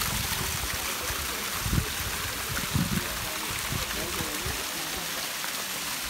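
Water from a thin waterfall trickling down a rock cliff and splashing onto stones: a steady hiss of falling water, with a couple of low bumps about two and three seconds in.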